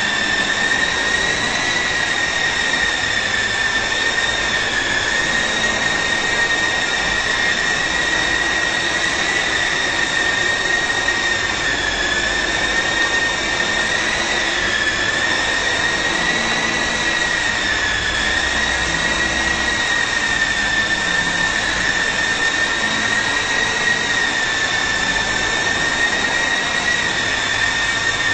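Syma S009 remote-control helicopter's small electric motors and rotors running, a steady high-pitched whine that wavers slightly in pitch as it flies.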